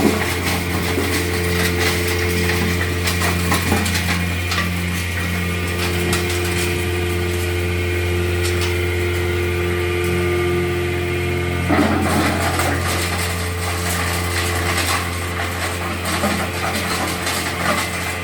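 Stone pulverizer (hammer mill) running with a steady hum and irregular clattering as zeolite stone is crushed inside. About twelve seconds in, one of the steady tones in the hum stops.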